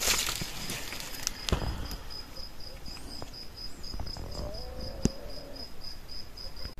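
A cricket-like insect chirping in a steady run of high-pitched pulses, about four a second, starting a second and a half in. A few sharp snaps of twigs underfoot break in, the loudest about a second and a half in and another near five seconds.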